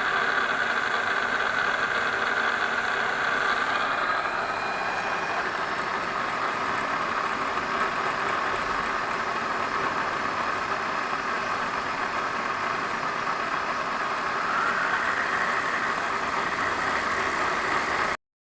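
A machine running steadily with a whining hiss whose pitch shifts slightly twice, cutting off suddenly near the end.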